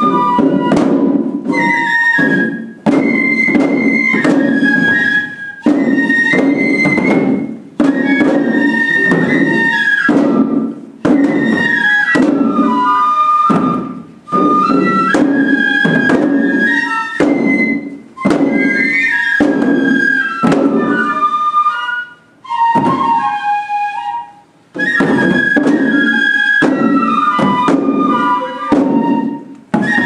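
Higan shishimai festival music: Japanese bamboo flutes play a high melody while the lion dancers beat the drums strapped to their bellies. The music comes in phrases of a few seconds, each broken off by a brief pause.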